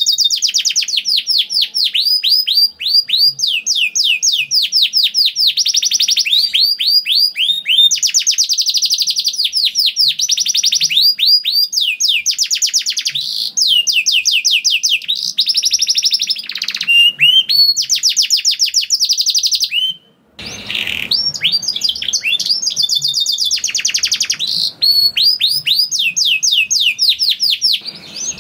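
Domestic canary singing long, rapid trills of repeated falling notes, with a brief gap about two-thirds of the way through.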